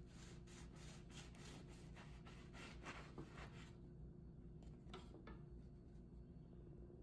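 Knife sawing through the crust of a home-baked baguette on a wooden cutting board: faint rasping strokes, about three a second, for nearly four seconds, then two short faint crackles about a second later.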